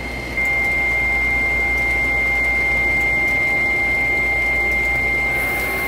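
Selective soldering machine running with its solder-fountain nozzle active: a steady high whine over a low hum, a little louder from about half a second in.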